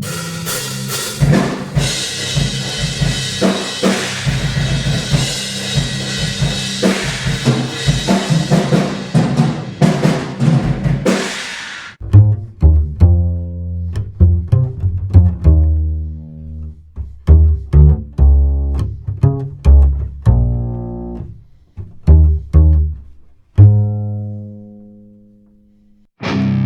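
A drum kit recorded with room microphones, busy and full of hits, played through a Buzz Audio Velox DC optical compressor without output transformer. About twelve seconds in it gives way to an upright bass plucked one note at a time, each note ringing and fading, through the same compressor.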